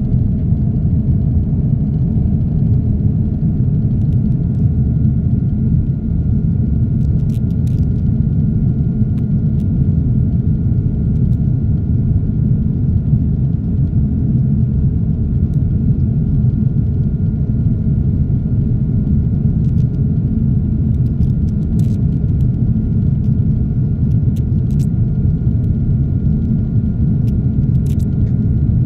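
Steady low rumble of a jet airliner's engines and airflow heard inside the passenger cabin during the climb after takeoff, with a faint steady whine above it.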